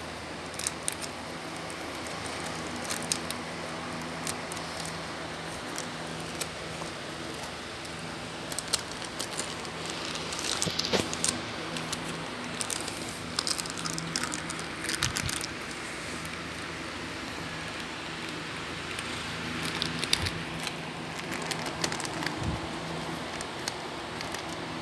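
A Shih Tzu chewing and gnawing a plastic snack packet: irregular crinkling and crackling of the wrapper, in clusters, thickest around the middle and again near the end.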